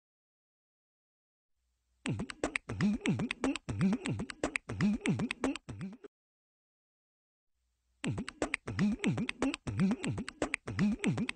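Beatbox-style vocal clip of quick clicks and sounds sliding up and down in pitch, about four seconds long. It plays twice, with dead silence before and between.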